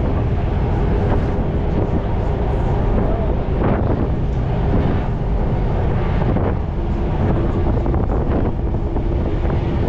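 Steady wind buffeting the microphone over the low, continuous rumble of a ferry under way, with a faint steady hum.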